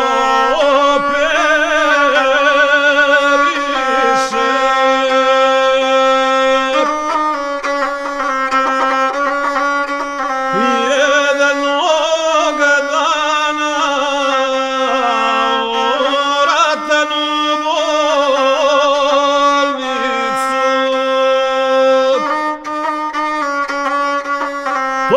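Gusle, the single-stringed bowed folk fiddle, playing a wavering melody over a steady low note. A man's sung epic line ends about four seconds in, and the gusle plays on alone.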